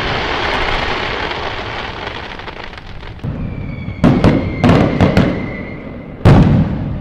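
Fireworks display: the crackling rumble of a big burst fades out, then a steady whistle sounds. Several sharp bangs follow, with a loud bang near the end.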